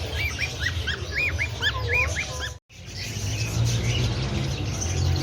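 Many birds chirping with short, quick rising-and-falling whistled calls over a steady low hum, with a sudden break to silence about two and a half seconds in.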